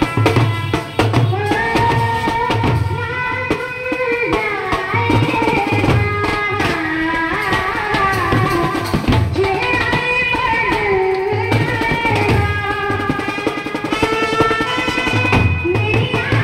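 Indian band playing a slow film-song melody live, the tune carried on held, gliding melody instruments over a steady drum beat.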